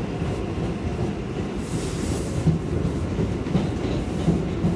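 Inside a New York 7 train subway car on the move: a steady low rumble of wheels and running gear, with a brief hiss about two seconds in and a few sharp clacks of the wheels over rail joints in the second half.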